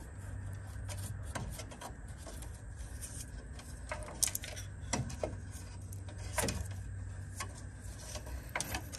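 Hands working car dash wiring: scattered small clicks and rubbing as wires and plastic spade connectors are pulled and handled, over a steady low hum.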